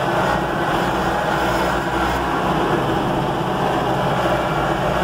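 Vehicle engine running steadily, an even unbroken hum.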